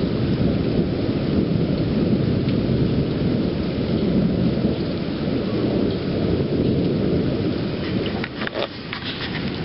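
Thunder rumbling continuously over steady rain from a thunderstorm. A few sharp taps come near the end.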